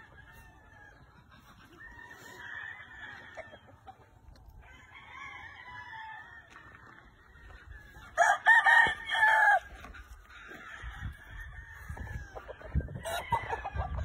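Gamefowl roosters crowing. One crows loudly and close about eight seconds in, while others crow more faintly further off before and after it.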